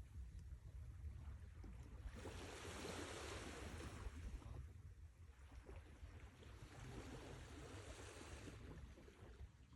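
Sea waves washing onto the shore, with a steady low rumble of surf. The hiss of the surf swells twice, about two seconds in and again past six seconds, each swell fading after a couple of seconds.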